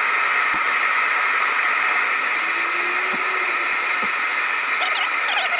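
Steady rushing noise of a running machine, with a few faint clicks and taps from hands working the fitting on the radiator's bottom transmission cooler line.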